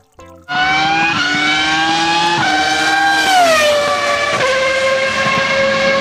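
Formula One race car engine at high revs on track, a high-pitched whine that steps in pitch a few times, glides down about halfway through and settles on a lower note.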